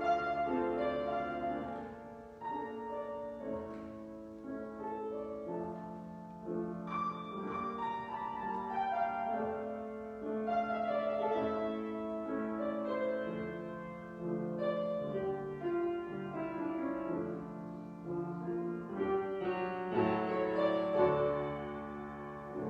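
Keyboard instrumental music: slow, sustained chords moving over a long-held bass note.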